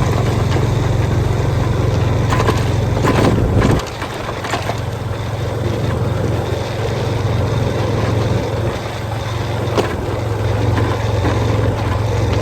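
Motorbike running on the move, a steady low rumble that drops off sharply about four seconds in and builds back near the end, with a few knocks and rattles just before the drop.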